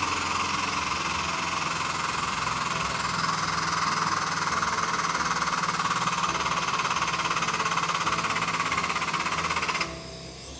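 Hydraulic pump of a floor frame-straightening machine running steadily under load as the chained tower pulls the crushed rear of the car back into square, then cutting off abruptly near the end.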